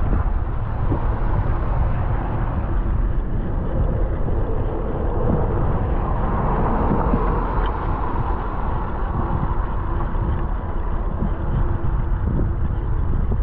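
Wind rumbling on a bike-mounted action camera's microphone while riding, over tyre and traffic noise on a wet street.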